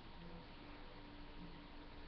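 Near silence: faint steady hiss of room tone, with a few faint low hums.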